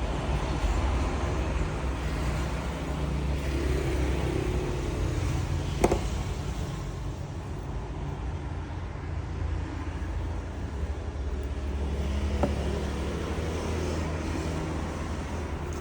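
Steady low background rumble, with a sharp click about six seconds in and a fainter tick near the end.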